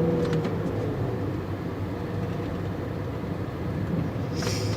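V8 car engine and exhaust running steadily while driving, heard with the windows down along with road and wind noise.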